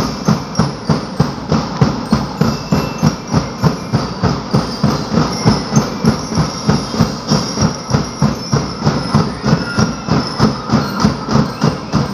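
Street-dance drumming: drums beating a steady, driving rhythm of about three strikes a second.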